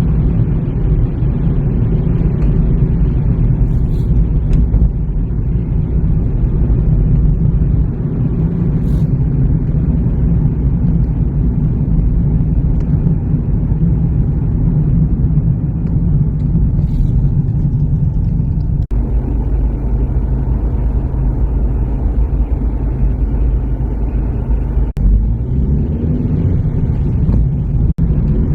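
Car driving: a steady low rumble of engine and road noise. It drops out for an instant three times in the latter half, where the recording is spliced.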